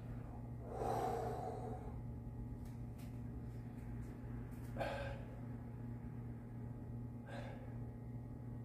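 A man breathing out heavily from exertion as he comes up out of a deep squat. There are three breaths: a longer one about a second in, then shorter ones around five and seven seconds in, over a steady low hum.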